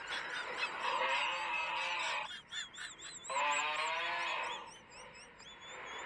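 Exaggerated comic snoring: two long, rasping snores about two seconds apart, each followed by a thin, wavering whistle.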